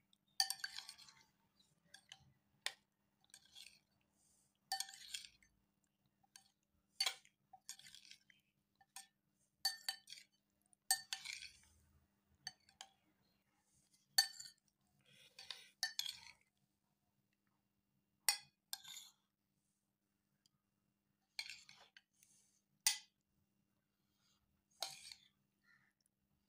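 Metal spoon stirring in a glass bowl, clinking and scraping against the glass in short separate strokes with pauses between them, about a dozen times.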